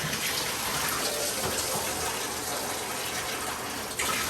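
Water running steadily from a bathtub tap, splashing into the tub.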